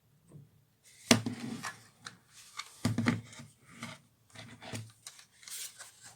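Handling noise: a series of knocks and rubbing scuffs as a small battery-powered fan is picked up and moved. The sharpest knock comes about a second in and another cluster near three seconds.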